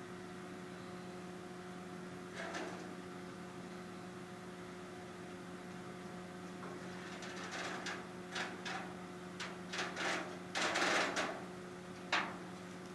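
A steady electrical hum, with one short handling noise about two and a half seconds in and a run of short handling noises from about seven to twelve seconds in.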